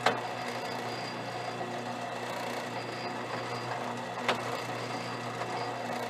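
Drill press motor running with a steady hum, its bit not yet cutting. Two sharp clicks come over it, one at the start and one about four seconds in, as the vise and press are adjusted.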